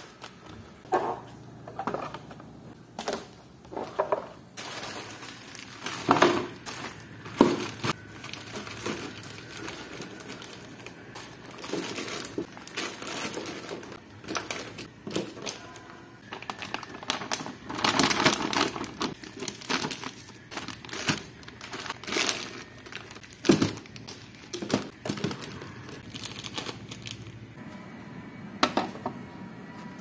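Plastic-wrapped frozen meat packs crinkling and knocking against hard plastic storage bins as they are handled and packed in: irregular rustles and clatters with sharper knocks now and then.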